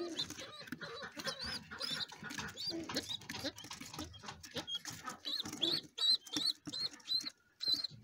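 Pigeon squabs peeping: short, high, rising-and-falling squeaks, scattered at first and then about three a second in the second half, with rustling as the nestlings are handled in the nest.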